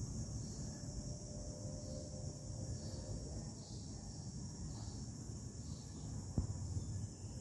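Faint outdoor ambience: a steady high-pitched insect hum over a low rumble, with a single sharp click about six seconds in.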